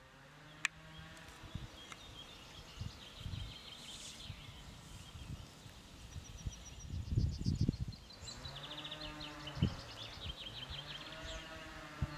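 Outdoor background of birds trilling and chirping in quick high runs, over a faint wavering hum, with a short cluster of low thumps about midway.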